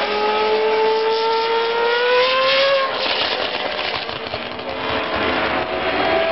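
Two A1GP single-seater race cars' V8 engines at full throttle, their pitch rising steadily as they pass. About three seconds in the engine note breaks off and drops away for a second or two, then picks up again near the end.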